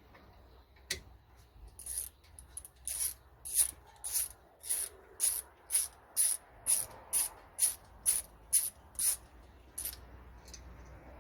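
Socket ratchet winding out a 14mm brake caliper bolt: a short clicking rattle on each backstroke, about two strokes a second for some seven seconds.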